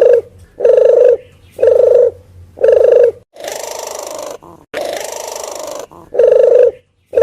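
Red collared dove (puter geni) calling: short, hoarse coos repeated about once a second, as played for a bird lure. A little past the middle the coos give way to two quieter stretches of hiss, each about a second long, before the cooing resumes.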